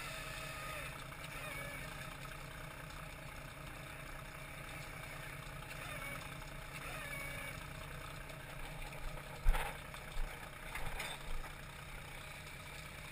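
Fishing trawler's engine running steadily, with gulls calling now and then overhead. A few sharp knocks come about nine to eleven seconds in, the loudest first.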